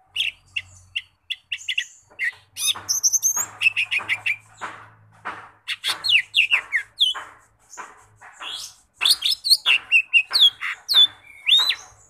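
Caged cucak ijo mini (a small green leafbird) singing a long, varied song: quick chirps and rapid chatter mixed with clear whistled notes, several of them sliding downward, and some very high notes.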